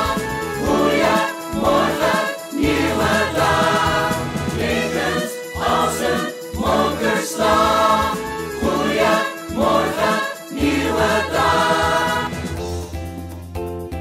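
Several voices singing a musical-theatre song together over a backing track; the singing stops about twelve seconds in, leaving the accompaniment playing more quietly.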